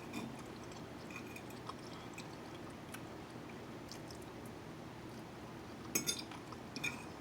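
Faint eating sounds: quiet chewing with a few light clicks of utensils, a small cluster of clicks about six seconds in.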